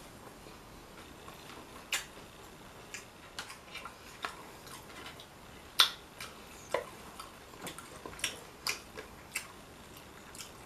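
Irregular sharp clicks and small crackles from eating and handling crisp hard taco shells, with one louder crack about six seconds in.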